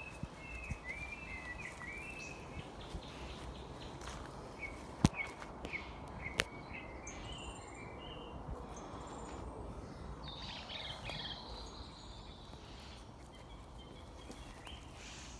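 Wild birds chirping and singing in short phrases over steady background noise, with two sharp clicks about five seconds in and again a second and a half later.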